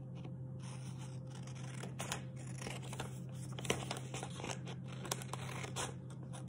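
Scissors snipping through a sheet of folded paper, a run of irregular cuts mixed with paper rustle, as a tab is cut off.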